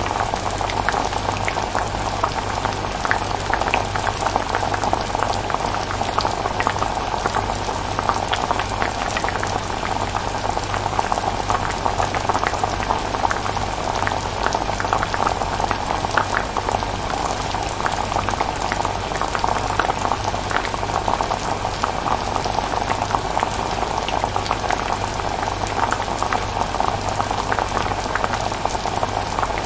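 Pot of chilli simmering on the stove: thick sauce bubbling with a steady stream of small pops and plops, over a low steady hum.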